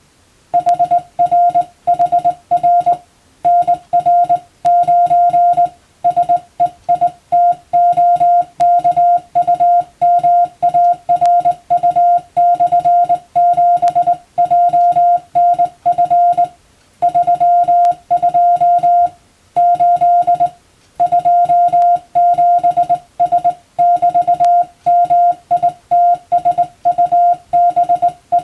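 Hand-keyed Morse code (CW): a steady mid-pitched beep switched on and off in dots and dashes, sending a practice telegram in international Morse. It starts about half a second in, with short pauses between words.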